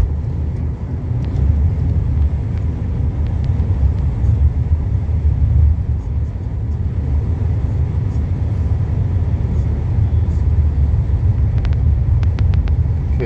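Car cabin noise while driving: a steady low rumble of road and engine, with a few faint clicks in the last two seconds.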